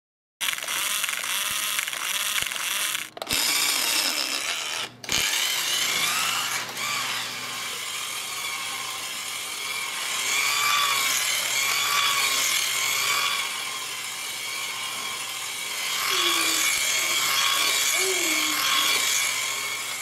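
Small electric motor and gears of a toy radio-controlled Lamborghini whining as it drives and drifts, the pitch rising and falling with the throttle. It starts about half a second in and breaks off briefly twice in the first five seconds.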